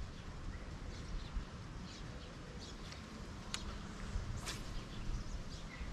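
Small birds chirping here and there over a low steady rumble, with two sharp ticks near the middle.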